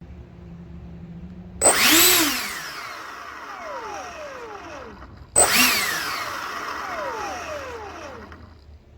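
E-flite A-10's 64 mm electric ducted-fan motor given two quick bursts of throttle about four seconds apart: each time it whines up sharply, then winds down over a few seconds. It is the motor suspected of being bad because of a noise issue.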